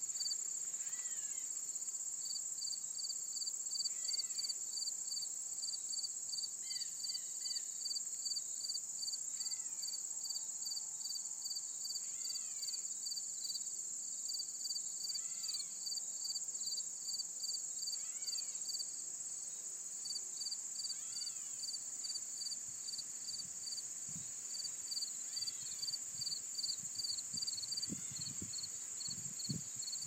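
Insect chorus: a steady high drone with a cricket-like chirp repeating about two or three times a second. A bird sings a short sweeping phrase every three seconds or so, and a few low bumps come near the end.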